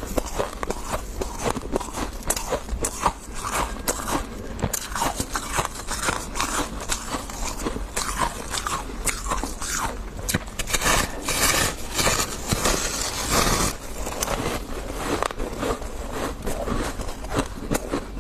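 Close-up crunching and chewing of refrozen freezer frost, a rapid run of sharp crisp crunches, with a denser stretch of crunching about two thirds of the way through.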